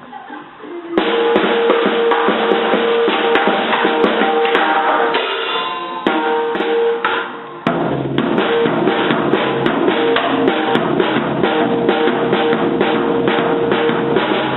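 Drum kit being played, a dense stream of drum and cymbal hits starting about a second in, with a brief break a little past halfway before the fast strikes resume.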